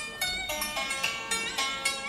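Dance music: a quick melody of plucked, zither-like string notes, struck a few times a second.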